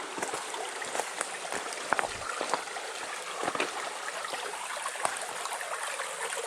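A strong spring jet of water pouring out from under the stream bank into the brook: a steady babble of flowing water with small splashes.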